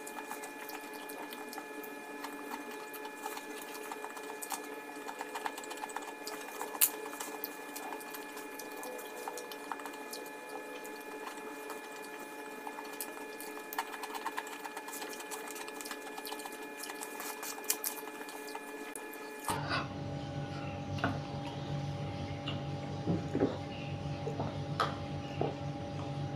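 Soft chewing and small crunchy clicks of someone eating fried rice and crackers by hand, over a steady mechanical hum. About twenty seconds in the hum changes pitch and a deeper hum joins it.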